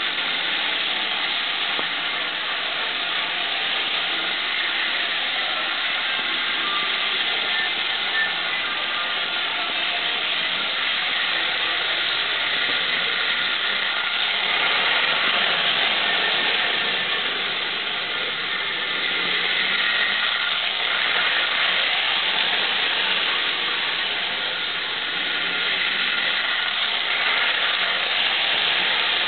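Vintage Lionel electric toy train running on three-rail track: a steady whirring hiss from its motor, gears and wheels, swelling and easing slightly.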